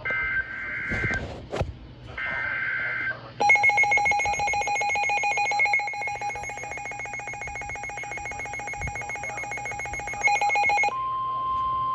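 Emergency Alert System tones on weather radio announcing a new warning. Two short shrill digital data bursts (the SAME header) come first. From about three and a half seconds a harsh, buzzing attention tone sounds for about seven seconds, then gives way near the end to a steady single-pitch alert tone.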